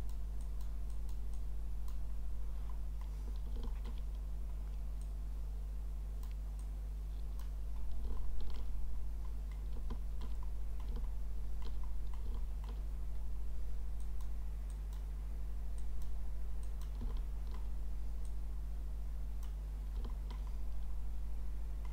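Steady low electrical hum with scattered faint clicks from a computer mouse and keyboard.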